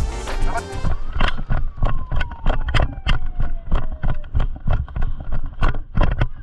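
Background music that drops its sustained tones about a second in, leaving a quick, steady beat of about four thumps a second, with one tone sliding slowly downward for a few seconds.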